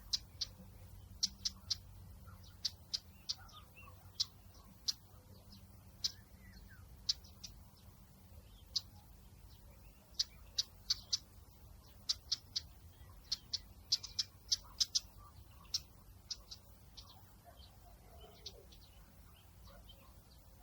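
Outdoor nature ambience of small birds giving short, sharp high chirps, singly and in quick runs of two to four, over a faint low rumble.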